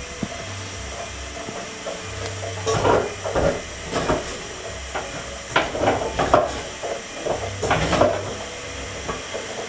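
Wooden spatula scraping and stirring a crumbly maize-meal (kawunga) mixture in an aluminium pot, in several bursts of strokes over a steady hiss.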